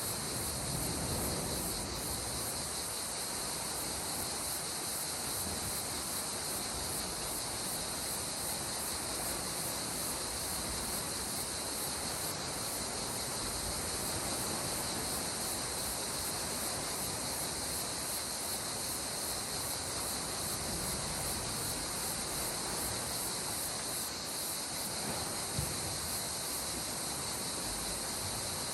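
Gentle sea water washing in soft swells, under a steady high hiss that does not change.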